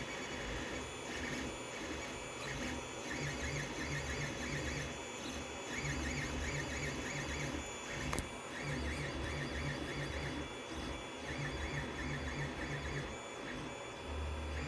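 Creality Ender 5 Plus 3D printer's stepper motors whining in short runs of pitched tones as the print head moves back and forth, with one sharp click about eight seconds in.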